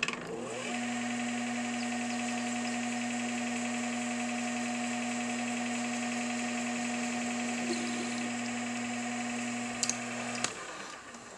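Metal lathe running with a steady hum while a center drill in the tailstock is fed into the spinning steel workpiece to spot a hole. Near the end the lathe is switched off and the hum dies away.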